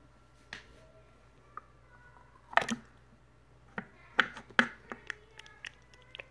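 A small plastic cup of slime being handled: scattered knocks and small clicks, the loudest about two and a half seconds in and a cluster around four seconds in.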